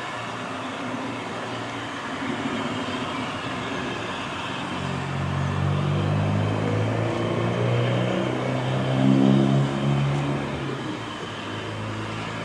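A vehicle engine running: a low steady hum rises out of a background rumble about five seconds in, is loudest a little before the end, then drops back to the rumble.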